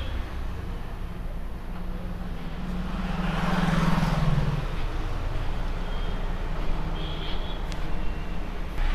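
Street traffic noise, with a motor vehicle passing by about three to four seconds in: its engine hum and tyre noise swell and then fade.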